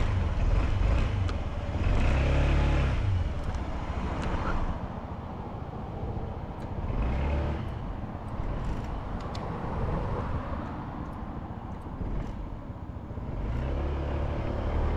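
Honda Zoomer 50 scooter's engine running while riding, its pitch rising and falling with the throttle about two seconds in, again mid-way, and near the end, over steady road and wind noise.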